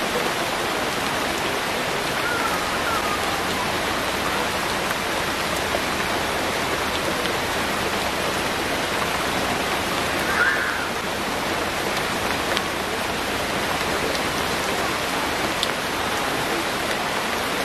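Heavy rain falling steadily on trees and a wet veranda floor, with a brief high chirp about ten seconds in.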